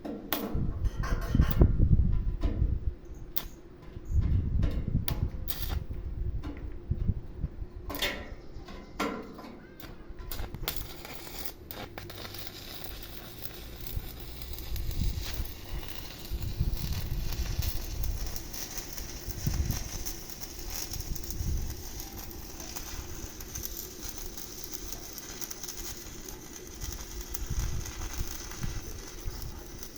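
Stick-welding arc from a 7018 electrode crackling and hissing steadily from about twelve seconds in. Before that there are scattered sharp clicks and knocks with uneven low rumbles.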